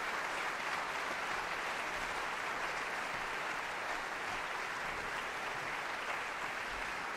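Audience applauding, a dense, even clapping that holds steady throughout.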